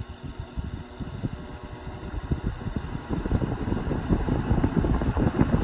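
Vintage Eskimo box fan switched back on and spinning up, its airflow buffeting the microphone in low, gusty rumbles that grow steadily louder as it gathers speed.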